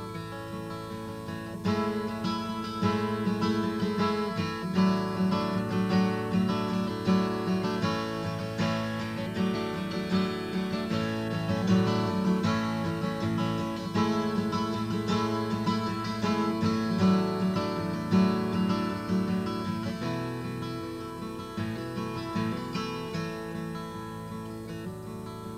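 Acoustic guitar strummed through an instrumental break in a live folk song, with no singing. It gets louder about two seconds in and eases off near the end.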